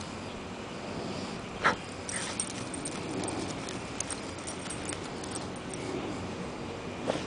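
A beagle snuffling with its nose in the dirt and digging after a mole. Two sharp bursts stand out, one about a second and a half in and another near the end.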